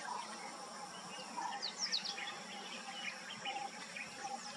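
Wild birds chirping, with a cluster of quick high chirps about one and a half to two seconds in, over a steady background drone of insects.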